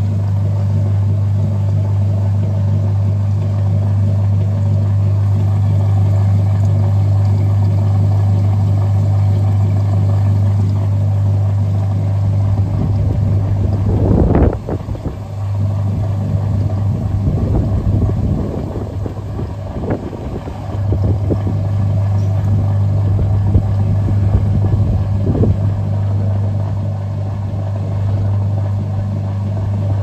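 Maytag Heritage top-load washing machine running with a steady motor hum. Partway through the hum breaks up into a run of knocks and clunks, with one sharp knock standing out, then settles back into the steady hum.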